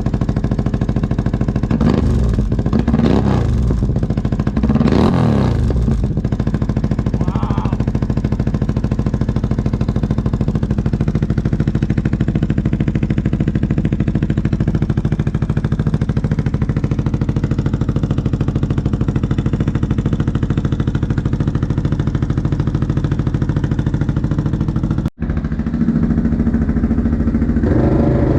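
ATV or side-by-side engine with an aftermarket exhaust idling steadily, the throttle blipped into a few quick revs near the start. Near the end the sound briefly cuts out and the revs rise again.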